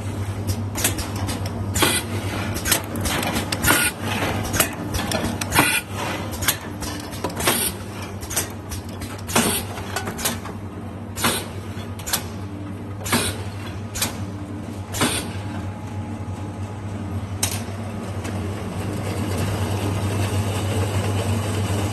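Automatic aluminium can sealing machine running: a steady motor hum with sharp mechanical clacks, the loudest coming about every two seconds. Near the end the clacks stop and a steady hiss grows louder.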